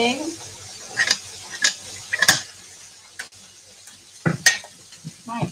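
A spatula stirring vegetables in a frying pan on a gas burner, with a handful of sharp clacks of the utensil against the pan over a light sizzle of frying.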